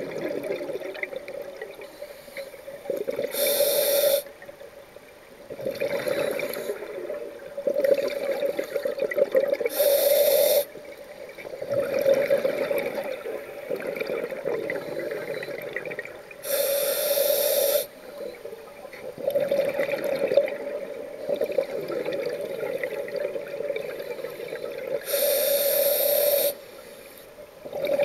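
A scuba diver breathing underwater through a regulator in a slow, regular cycle. There are about four short, sharp hisses, each followed by a longer gurgle of exhaled bubbles.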